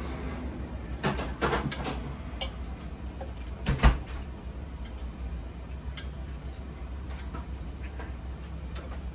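Knife and fork clicking and knocking against the steak plate while cutting steak, in a cluster about a second in and with one loud knock a little under four seconds in, a few lighter clicks after, over a steady low hum.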